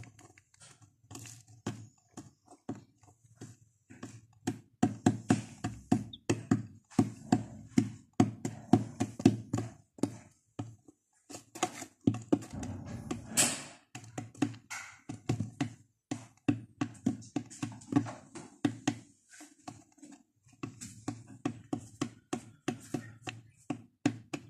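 Domestic chicks pecking: quick runs of taps and knocks on a hard plastic floor, coming in bouts with brief pauses.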